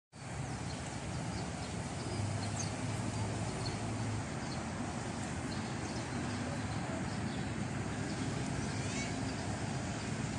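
Open-air ambience: a steady low background noise with a few faint, short bird chirps scattered through.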